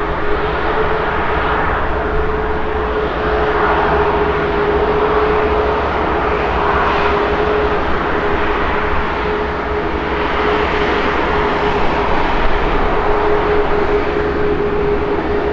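Airbus A340-600's four Rolls-Royce Trent 500 turbofans at taxi power as the airliner rolls past: a steady rushing engine noise with one steady droning tone held through it.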